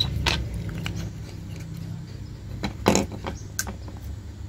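Light clicks and knocks of a thin plywood panel and small plastic electronic parts (voltmeter, rocker switch, dimmer knob) being handled, the loudest about three seconds in, over a steady low background rumble.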